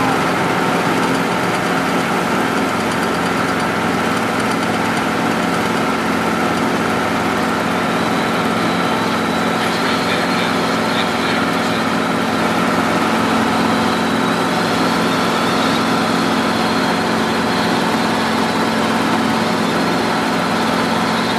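Robinson R22 helicopter's engine and rotor running steadily, a constant drone heard from inside the small cockpit.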